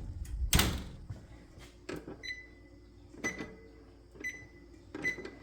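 A thump about half a second in, then four short electronic beeps about a second apart from an oven's control panel as its buttons are pressed to set it.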